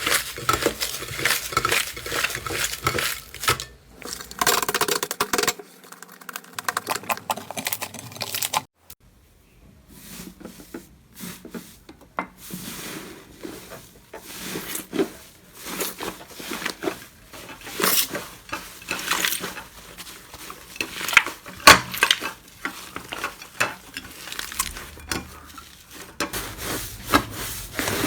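Slime being squished, pressed and stirred, giving a dense run of small crackles, pops and clicks, with a brief quiet gap about nine seconds in.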